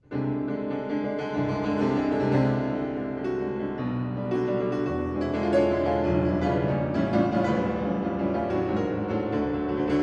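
Solo piano playing loud, dense chords, coming in suddenly right at the start after a very quiet held passage.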